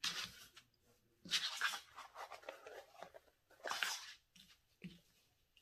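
Hands rubbing over a planner cover and pulling elastic cord through its laced holes: a few short rustling scrapes, the longest starting about a second in, with small ticks near the end.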